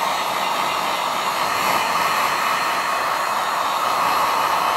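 Electric heat gun on its low setting running steadily, blowing hot air onto plastic iron-on covering.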